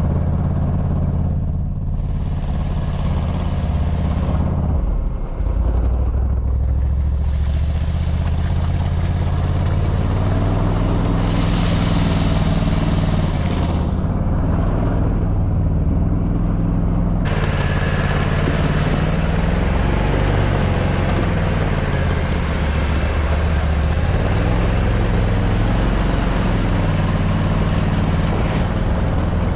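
Argo Aurora 950 8x8 amphibious ATV's engine running steadily, its pitch shifting now and then.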